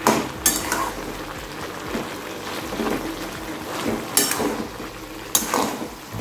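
A metal spatula stirs cooked mixed vegetables in a kadhai, scraping the pan and knocking against its side a few times. A soft hiss of the hot vegetables cooking runs between the knocks.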